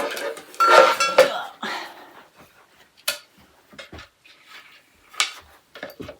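Metal parts of a flat-pack storage rack clinking and knocking as they are handled and pushed together. There is a louder, ringing clatter about a second in, then scattered sharp knocks.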